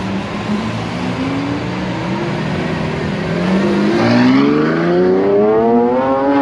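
Lamborghini Sián's V12 engine pulling away at low revs, then accelerating hard about four seconds in, its pitch climbing steadily as it gets louder.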